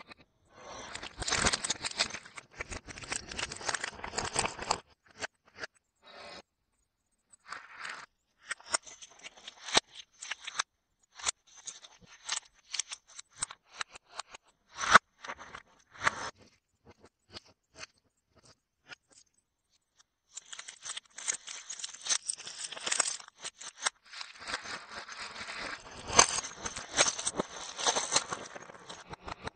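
Snack packaging crinkling and being torn open, with sharp clicks of biscuits set down on a glass platter. There are dense runs of crinkling near the start and over the last third, with scattered clicks in between.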